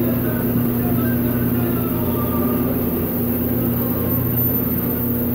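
Steady machine hum at a constant pitch.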